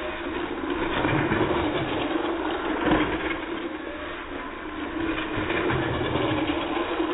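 Toy radio-controlled monster truck's electric motor whirring, drawn out and pitched low by slow-motion playback, with a thump about three seconds in.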